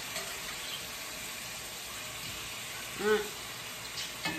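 Thin slices of beef frying in a stainless steel pan with a steady sizzle. A short hummed voice sound about three seconds in is the loudest moment, and a spoon clinks against the pan near the end.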